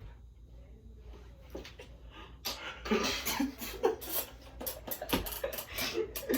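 A person making random mouth and voice noises: about two and a half seconds in, a rapid, irregular string of clicks, breathy hisses and short vocal sounds begins.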